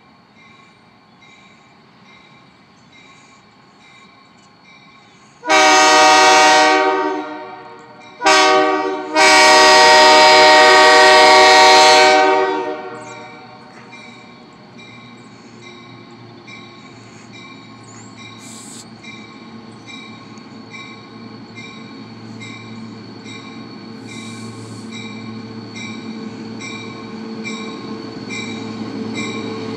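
Multi-chime air horn of an approaching EMD SD40-2 diesel freight locomotive sounding three blasts: long, short, long. Then the rumble of its two-stroke V16 diesel grows steadily louder as the train draws near.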